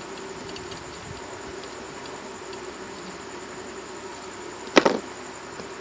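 Steady droning hum from the electronics workbench, with an even hiss under it, and one sharp click of a tool near the end.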